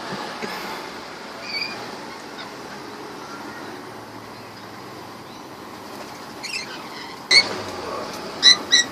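A pet bird giving a few short, sharp, high-pitched calls near the end, over steady background noise.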